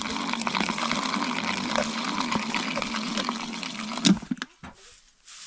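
Hand-cranked mixing jar being turned steadily, its gears whirring and the liquid inside churning and sloshing. About four seconds in a sharp knock sounds and the churning stops.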